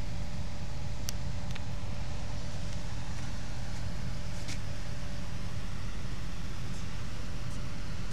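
Large diesel engine of a moored ferry running steadily: a low, even drone with a constant hum above it. A few light clicks sound over it.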